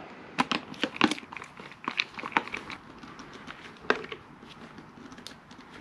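Irregular light clicks and ticks of a hand tool and small screws being worked as the front screws of a motorcycle handguard are driven in.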